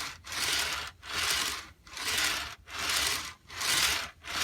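Lionel O27 caboose pushed quickly back and forth by hand on K-Line tubular track: its metal wheels roll along the rails in even strokes about one a second, each swelling and fading.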